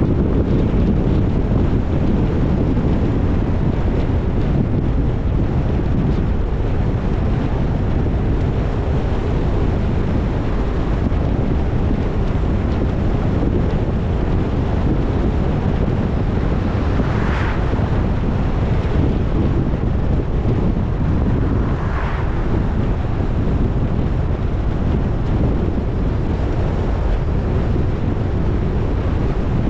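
Steady wind and road noise from a moving car, heaviest in the low end, with two brief whooshes a few seconds apart past the middle.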